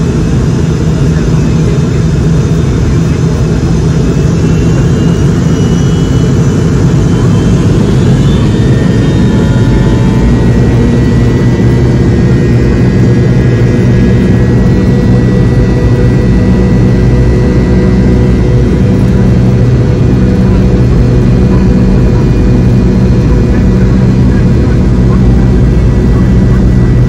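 The MD-88's rear-mounted Pratt & Whitney JT8D turbofans, heard from inside the cabin, spooling up to takeoff power: a whine rising in pitch a few seconds in, then a steady, loud engine noise with low rumble as the jet starts its takeoff roll.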